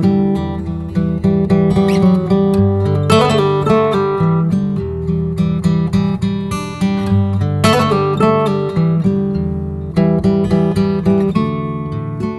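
Background music: acoustic guitar strumming and picking chords at a steady pace.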